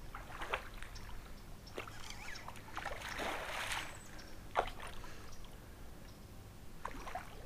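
A hooked bass splashing and thrashing at the water's surface beside the boat as it is fought on the rod, with the longest, loudest splashing about three seconds in.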